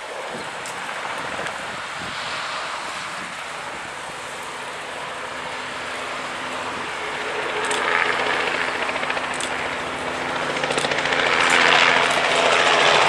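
Robinson R44 helicopter lifting off and flying closer, its engine and rotor sound growing louder. A steady hum comes through about seven seconds in, and the sound is loudest near the end.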